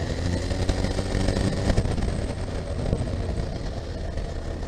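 Honda CB1300SF's inline-four engine running steadily as the motorcycle is ridden, with a constant rushing noise of wind and road.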